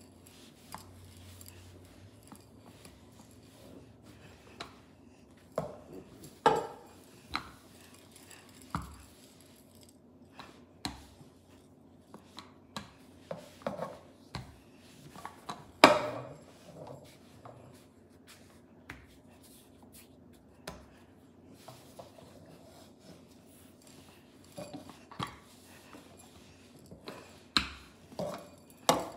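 Rolling pin knocking and clacking against a hard stone countertop as pizza dough is rolled out: irregular knocks, the loudest about halfway through.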